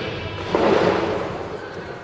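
Background rock music, with a loud crash about half a second in that fades away.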